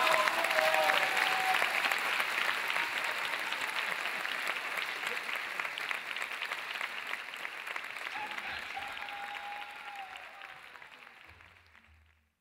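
Audience applauding after a dance performance, with a few voices calling out over the clapping near the start and again about eight seconds in; the applause fades out near the end.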